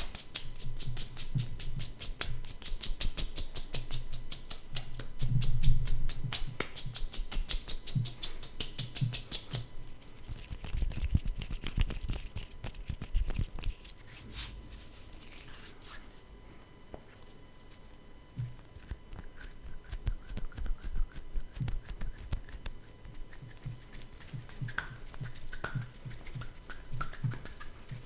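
Hand sounds close to a microphone: a fast, even run of strokes for about the first ten seconds, then slower, scattered strokes and soft thumps, quietest in the middle.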